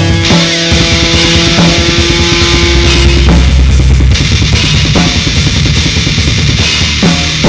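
Loud heavy rock music played on drum kit and guitar, with a held guitar note that ends about three seconds in.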